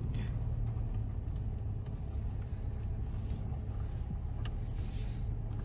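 Car creeping forward at low speed to park, heard from inside the cabin: a steady low rumble of engine and tyres.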